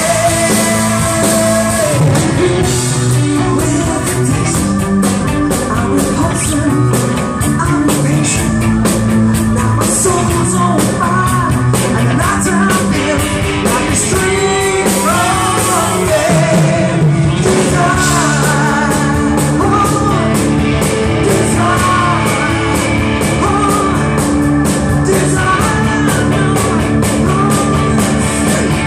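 Live rock band playing loudly: a woman singing lead over electric guitars, bass guitar and drums.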